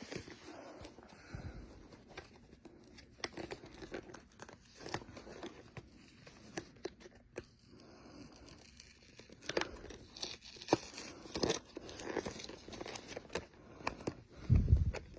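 Product packaging being opened by hand: irregular crinkling, tearing and small clicks of the wrapping, busier in the second half, with a dull bump near the end.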